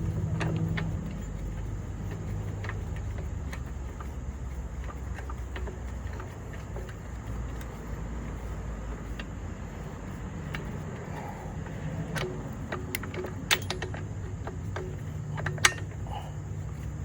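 Scattered sharp metallic clicks and taps from hand work on a floor jack's parts, most of them in the last few seconds, over a steady low hum.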